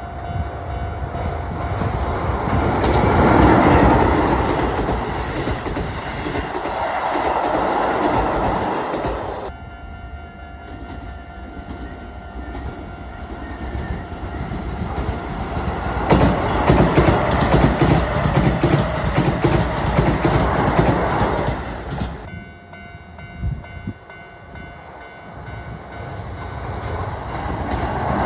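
Keisei Electric Railway trains passing over a level crossing, wheels clattering on the rail joints. Two go by, loudest about 3 to 9 seconds in and again about 16 to 22 seconds in, and another comes on near the end. In the quieter gaps the crossing's warning bells ring steadily.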